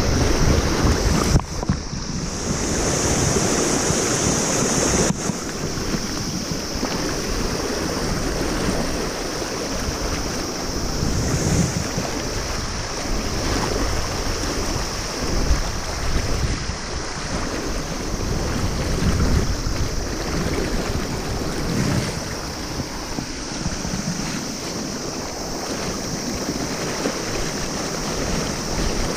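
Fast, shallow river rapids rushing steadily, close by, with wind rumbling on the microphone.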